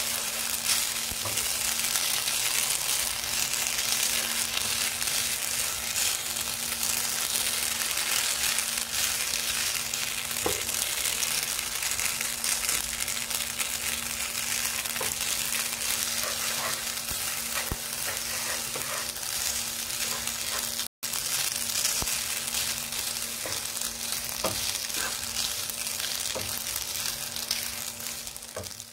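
Chicken masala and spaghetti sizzling in a hot nonstick pan, stirred and tossed with a wooden spatula, with soft scrapes and taps of the spatula against the pan. A steady low hum runs underneath, and the sound cuts out briefly about two-thirds of the way in.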